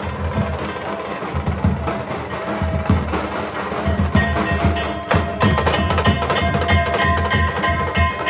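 Music with fast, busy drumming and clacking percussion; steady ringing tones join about halfway through.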